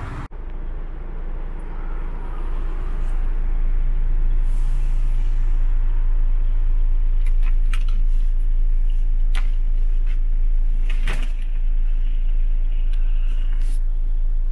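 Scania R490's 13-litre straight-six diesel idling, a steady low rumble heard inside the cab, growing louder over the first few seconds. A few light clicks and knocks sound over it.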